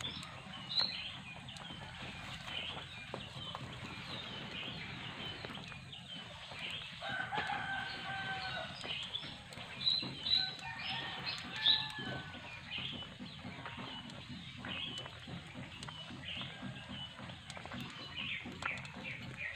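Chickens in the background: many short high chirps and clucks throughout, and a rooster crowing partway through, with a longer pitched call about seven seconds in and another around ten seconds.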